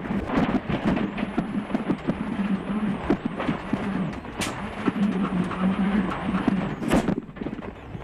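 Rally car driving at speed on a stage, its engine held at steady high revs with a constant rattle of small knocks, two sharper knocks in the second half, and a faint wavering high whine.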